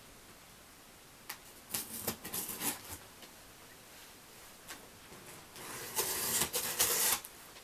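A cardboard shipping box being opened by hand: packing tape and cardboard scraping and tearing in short bursts, with a longer, louder rip about two-thirds of the way through.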